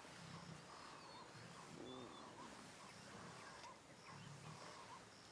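Faint wild animal sounds from lions and hyenas at a kill: low growls with short higher calls repeating every half second or so, and faint bird chirps above them.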